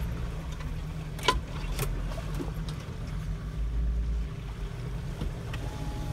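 Off-road vehicle's engine running low and steady as it crawls along a rutted, muddy trail, heard from inside the cab, with two sharp knocks from the vehicle jolting about a second and a half in.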